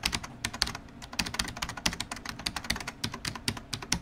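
Typing sound effect: a quick, uneven run of keystroke clicks, several a second.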